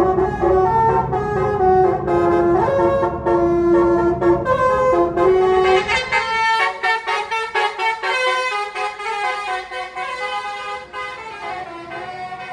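Tour bus's basuri telolet horn, a multi-note musical air horn, playing a quick melody as the bus passes, with the bus engine running underneath. About six seconds in, the engine noise drops away while the horn tune carries on, growing gradually fainter.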